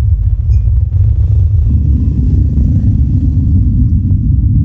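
Stack of sixteen Cobre subwoofer cabinets with 18-inch Betavo triple-magnet drivers playing deep bass at very high volume, heard as a dense, heavy rumble. About a second and a half in, a slightly higher bass layer joins.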